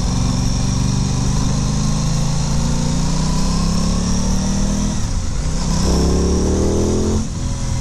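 Aprilia Tuono 660's parallel-twin engine pulling under acceleration. Its pitch rises through one gear, drops at an upshift about five seconds in, then climbs quickly again before another shift near the end.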